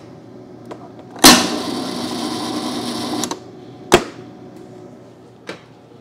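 Ice dispenser's cube/crush mechanism on a Frigidaire side-by-side freezer working as cubed ice mode is selected: a sudden clunk about a second in, about two seconds of steady mechanical running, then a single sharp click.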